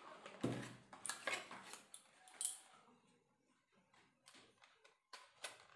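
A few light clicks and knocks spread across a few seconds, from a glass face-cream jar being handled.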